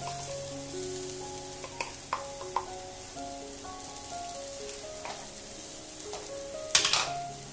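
Onions and spices sautéing in hot coconut oil in a pan: a quiet steady sizzle with a few light ticks, and a louder stir of a wooden spatula near the end. Soft background music with long held notes plays over it.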